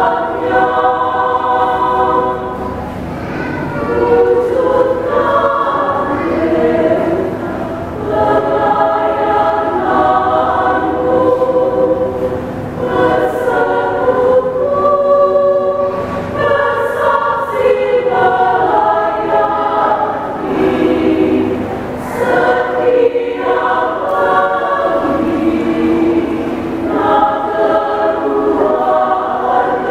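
Women's choir singing a hymn in several parts, phrase after phrase with short breaths between them.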